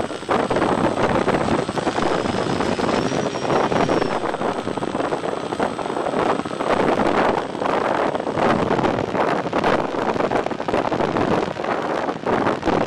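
Wind buffeting the onboard microphone of a Twinstar II model airplane in flight: a loud, rough, fluctuating rush with no clear motor tone.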